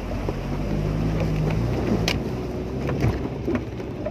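Suzuki Vitara-family 4x4 engine running as the vehicle drives slowly over a rough, rutted dirt track, heard from inside the cab. Two sharp knocks come about two and three seconds in as it jolts over the ruts.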